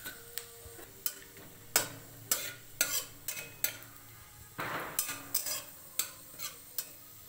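Metal spatula stirring and scraping in a metal kadai, in a quick run of sharp scrapes and taps with one longer scrape a little past halfway. Under it is the light sizzle of bay leaf, dry red chilli and cumin frying in oil for the tempering.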